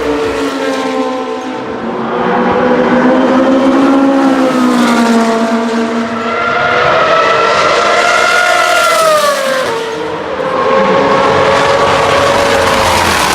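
Race car engine running hard on a circuit, its pitch rising and falling several times as it accelerates and brakes through corners, with a sharp drop about ten seconds in.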